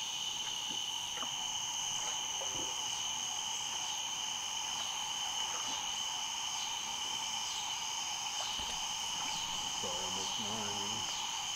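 Evening insect chorus in a swamp: a steady, unbroken shrill drone at several pitches, with a fainter chirp repeating about every two-thirds of a second. A brief low warbling sound comes in near the end.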